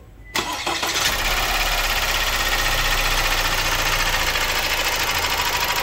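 Opel Insignia 1.6 CDTi diesel engine (136 hp) starting with a brief crank and catching about a second in. It then idles steadily with an even pulsing beat. This is the engine noise the mechanic puts down to a worn timing chain that is due for replacement.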